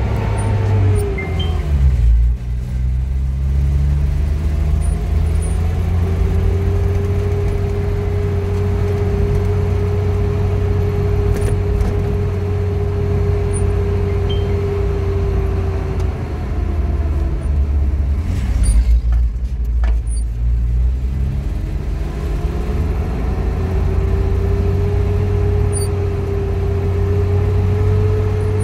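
Motor vehicle running on the road: a steady low rumble with a whine that rises as it speeds up and holds steady, then falls away about two-thirds through and rises again. A brief louder rush comes just after the whine drops.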